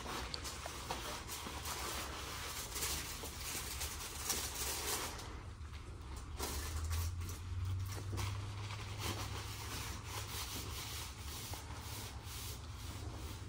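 Rubbing and rustling of a disposable sterile towel as hands and forearms are dried after a surgical scrub, in irregular scratchy strokes over a steady low hum.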